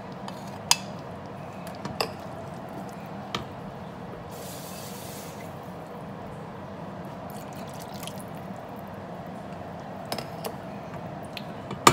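Tomato broth with pork and beans bubbling steadily in a stainless steel pot. A wooden spoon knocks sharply against the bowl and pot a few times, mostly in the first few seconds and again near the end. A brief hiss comes about four seconds in.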